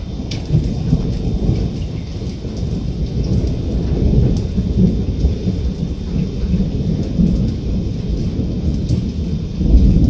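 Thunderstorm: a continuous low rumble of thunder over steady falling rain, with a louder surge of rumbling near the end.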